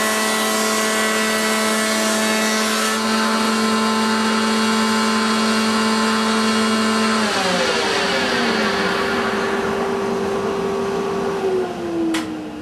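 Thicknesser running with a steady whine, a short board passing through its cutter head in the first few seconds. About seven seconds in it is switched off and the whine falls in pitch as the cutter head spins down, with a couple of clicks near the end.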